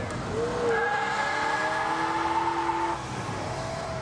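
Car doing a burnout on the track: tyres squealing in several steady and wavering pitches over the engine's running, easing off about three seconds in.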